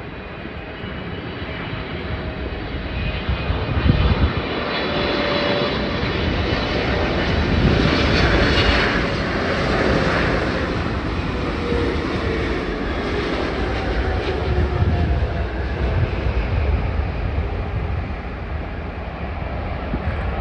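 A British Airways Boeing 777-300ER's GE90-115B turbofan jet engines on final approach for landing. The noise builds as the airliner passes low by, loudest about eight to ten seconds in, and a whining tone falls in pitch as it goes past. It then eases to a steady rumble.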